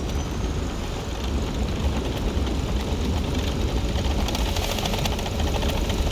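A car engine running, with a heavy low rumble and a rapid crackle of small clicks in the second half.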